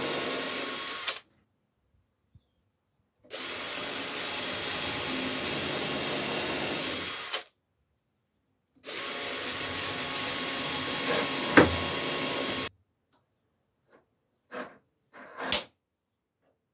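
Cordless drill boring into wooden boards, running at steady speed in three runs of a few seconds each, with a sharp click about eleven and a half seconds in. A few light knocks follow near the end.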